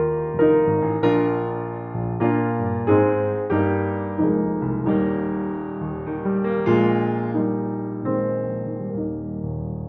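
Slow instrumental piano music: chords struck about once or twice a second, each fading before the next.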